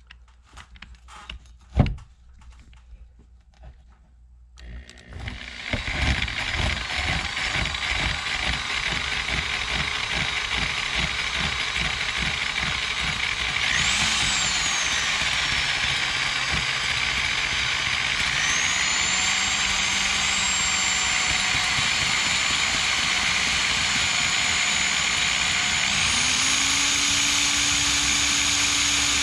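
Corded drill running a hole saw up into the wooden subfloor overhead, cutting steadily from about five seconds in after a few light clicks. Its motor pitch shifts several times as the load on the saw changes.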